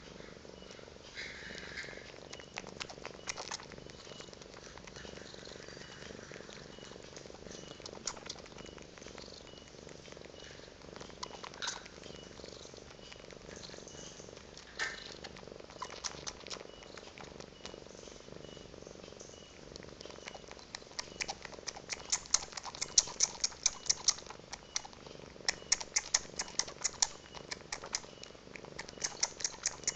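A cat purring steadily while a kitten suckles on an adult tomcat's belly, with quick wet sucking clicks from the kitten that become louder and more frequent in the second half.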